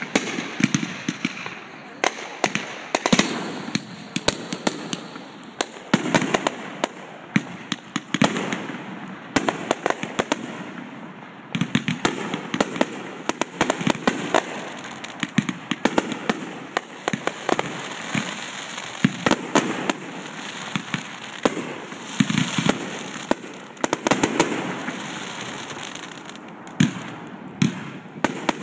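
Aerial fireworks bursting in a continuous barrage: many sharp bangs, some in quick clusters of rapid pops and crackles.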